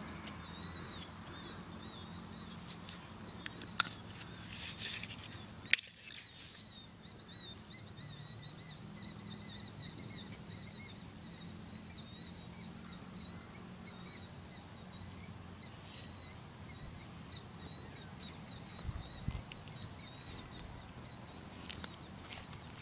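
Quiet outdoor background with a thin, steady high-pitched chirping. A few rustles and one sharp click come in the first six seconds.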